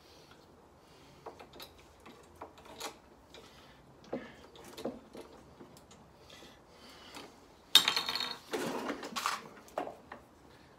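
Small clicks and knocks of plastic fittings and the tubular metal handle of a lawnmower being handled during assembly, with a louder clatter lasting a couple of seconds about eight seconds in.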